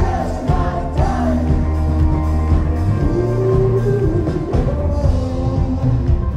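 Live rock band playing a song, electric guitar and keyboard over a heavy bass and beat, with a sung melody line on top.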